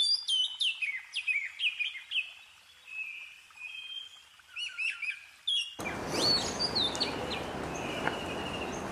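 Small songbird chirps, dubbed onto the footage and not the scarlet finch's own call. A quick run of short, falling chirps comes with thin held whistles between them. About six seconds in, a steady hiss of background noise comes in suddenly under more chirps and a held whistle.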